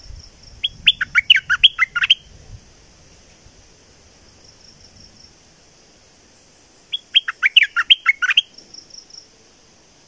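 Caged bulbul singing two short bursts of quick, sweeping notes, about six seconds apart, with a few faint notes after the second. A steady high insect drone runs beneath.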